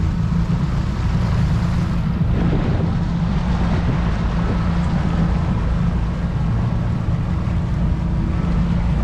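Motorboat engine running steadily with a low drone, mixed with wind and water noise.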